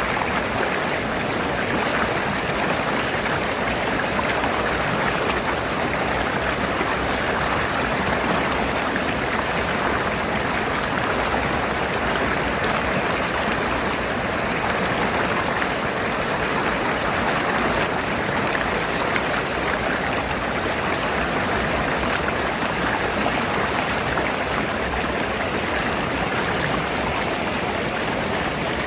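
River water rushing and splashing over rocks in a steady, even flow.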